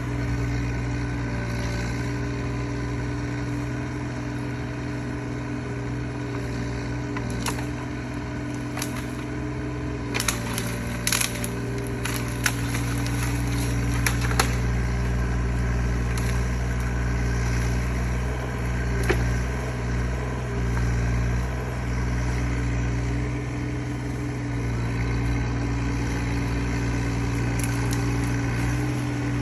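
Mini excavator engine running steadily under hydraulic work. A cluster of sharp clicks and knocks comes about a third of the way in, with a few single knocks elsewhere.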